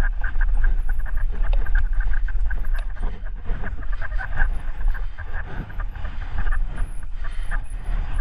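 Mountain bike riding downhill over a rough, rutted dirt trail: a steady low wind rumble on the camera microphone, with constant rattling and frequent short knocks from the bike over roots and bumps.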